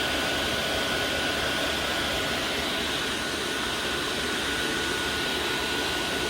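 Diesel heater blower motors running steadily at speed off one speed controller: a constant rush of air with a single high whine held at one pitch. One fan has its intake ported out and the other is standard with its restrictor, being run for an airflow test.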